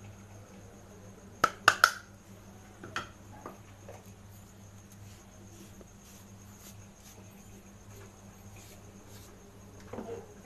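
Metal utensil clinking against a cooking pot while salt is spread into a bed in it: a quick run of sharp clinks about one and a half seconds in, then a few fainter taps, over a steady low hum.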